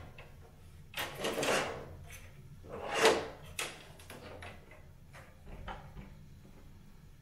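A 3D-printed plastic NAS case panel being handled and set in place: a few short scraping and knocking sounds, the loudest about three seconds in.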